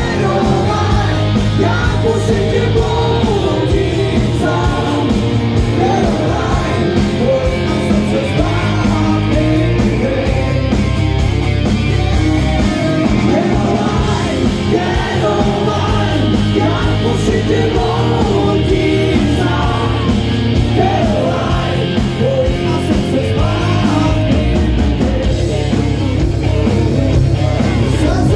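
Live rock band playing: a male singer sings lead over electric guitar, electric bass and drum kit.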